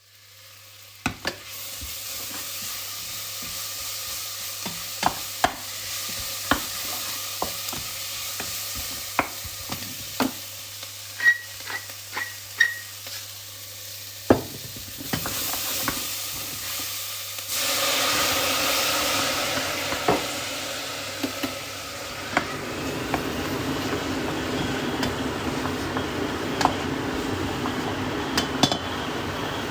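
Kitchen cooking sounds: a knife chopping vegetables on a cutting board in irregular knocks, with a few short metallic clinks. Then food sizzling and frying in a pan as a steady hiss through the second half.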